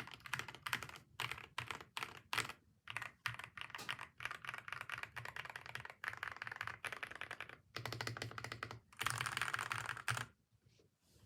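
Typing on a Sugar65 65% mechanical keyboard: bursts of quick keystrokes with short pauses between them, a longer fast run near the end, then the typing stops about ten seconds in.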